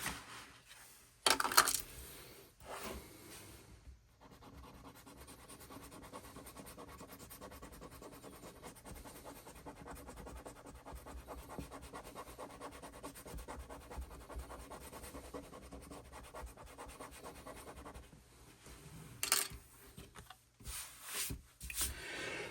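Scratch-off message card being scratched off in quick, repeated rasping strokes for about fifteen seconds, with a few louder handling knocks near the start and near the end.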